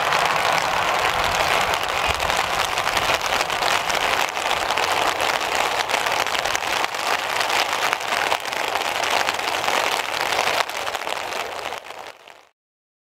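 Heavy rain pouring down in a steady hiss with close crackling drops, with the low rumble of diesel railcars faint in the first couple of seconds. The sound fades out near the end.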